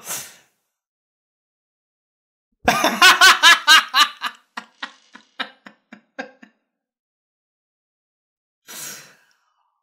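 A man laughing hard: a loud burst of rhythmic laughter about three seconds in that trails off into quieter, sparser chuckles, then a brief breathy exhale near the end.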